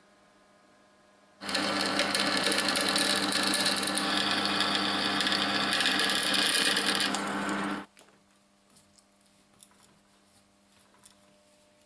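Drill press drilling through a steel plate: a steady motor-and-cutting noise starts suddenly about a second and a half in and cuts off abruptly about two-thirds of the way through, leaving a few faint handling clicks.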